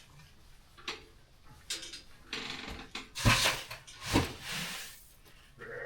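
Handling noises while putting out grain for a ewe: a few scattered knocks and clicks, then rattling, scraping rushes of grain and container about three to five seconds in, the loudest at about three seconds.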